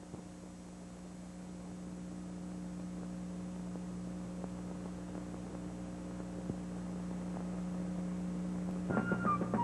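Steady electrical hum on an old film soundtrack, growing slowly louder. Music begins about nine seconds in.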